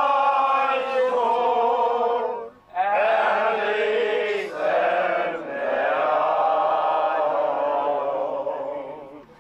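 A group of men singing together in slow, long held notes, with a short break for breath about two and a half seconds in. The singing fades near the end.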